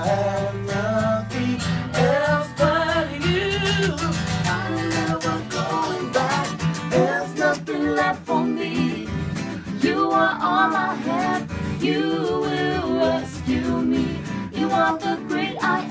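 Acoustic guitar strummed live with singing over it, the vocal line wavering and sliding in pitch.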